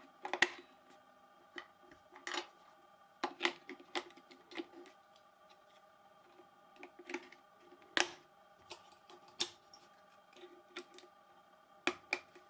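AA batteries clicking and knocking into a handheld multimeter's plastic battery compartment: scattered sharp clicks, the loudest about eight seconds in. A couple of clicks near the end as the battery cover is pressed into place.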